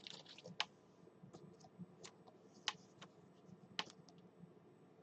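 A few faint, scattered clicks and taps of trading cards being handled, with near silence between them.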